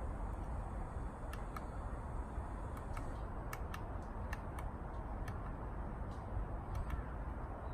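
Woodpecker pecking at tree bark: about a dozen sharp single taps at an uneven pace, not a drumming roll, over a steady low background rumble.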